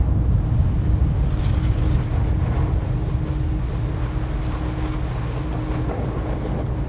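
Strong wind buffeting the microphone as a deep, steady rumble, with a faint steady hum underneath that stops near the end.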